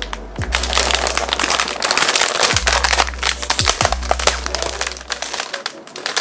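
Plastic wrapper of an Oreo cookie pack crinkling and crackling as its resealable tab is peeled open, dying down near the end.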